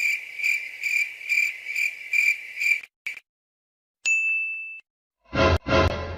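Sound effects played one after another. First a high chirping tone pulses about twice a second and stops at about 3 s. About a second later comes a single bright ding that fades out, and near the end two short, full-range noisy bursts.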